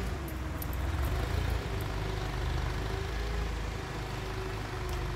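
Propane-powered Toyota forklift engine running steadily at low speed as the forklift creeps forward, a low, even rumble.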